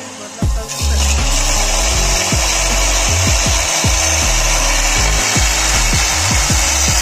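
Handheld electric cutter with an abrasive disc cutting through a metal bar: a loud, steady grinding hiss that starts about half a second in.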